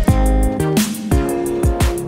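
Background music with a steady drum beat and deep bass notes that slide down in pitch.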